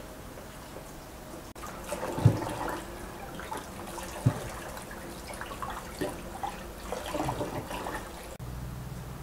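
Kitchen tap running and splashing over vegetables in a stainless steel sink as hands rinse and rub them, with a few sharp knocks of vegetables against a plastic colander and bowl.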